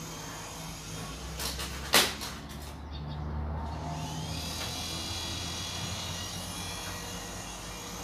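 Small electric motors and rotors of a toy infrared RC helicopter whirring steadily, with a sharp knock about two seconds in and a higher whine coming in about four seconds in.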